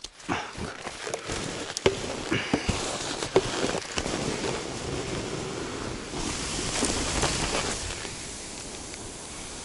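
Hunting skis sliding downhill over snow: a steady hiss with scattered clicks and crackles in the first few seconds. The hiss swells about two-thirds of the way in as the skis kick up a spray of snow.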